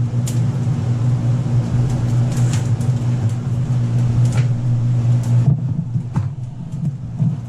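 Steady low machine hum, with a few short knocks and clatters as a plastic water bottle is fetched from under the counter and set down.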